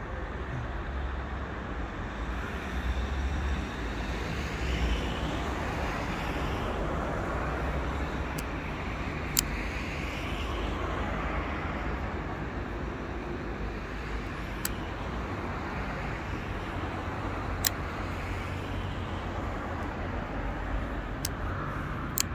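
Steady traffic noise from passing cars, swelling and fading. A few sharp clicks stand out, from the folding knife being handled.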